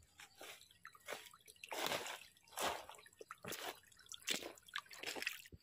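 Footsteps of rubber boots walking over wet leaf litter and stones: an uneven series of rustling, crunching steps, roughly one or two a second.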